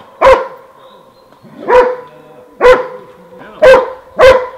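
Hunting hound baying at a wild boar: five loud barks over about four seconds, less than a second apart near the end.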